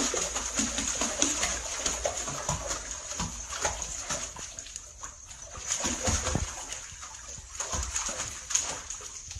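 Bathwater lapping and splashing softly and irregularly as a baby floating in an inflatable neck ring kicks and moves its arms.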